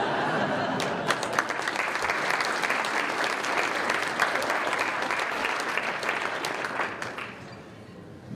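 Audience applauding, for about seven seconds, then dying away.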